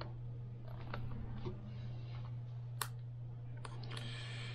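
Small scattered clicks and taps of hands working on an opened MacBook Air, with one sharper click about three seconds in and a brief rustle near the end, over a steady low hum.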